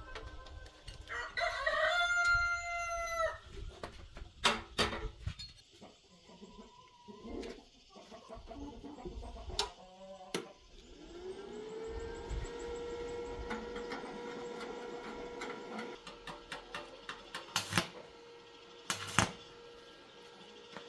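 A rooster crows once, about a second in, one call of about two seconds. Sharp clicks and knocks follow. From about eleven seconds a steady hum rises in pitch and holds for several seconds before fading.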